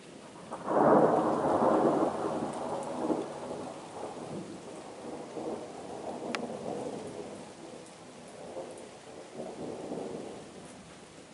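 Thunder from a storm passing overhead: a loud rumble breaks about a second in, then rolls on in weaker swells as it fades. Rain falls steadily throughout.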